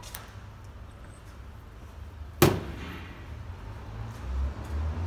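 A single sharp knock about two and a half seconds in, from a part or tool striking something during gearbox disassembly, over low rumbling handling noise.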